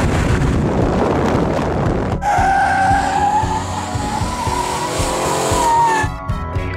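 A 1968 Dodge Charger's tyres squeal in a long, wavering screech as the car spins donuts, over the rumble of its engine. The first two seconds are a dense roar of engine and wind before an abrupt cut to the squeal. Music comes in near the end.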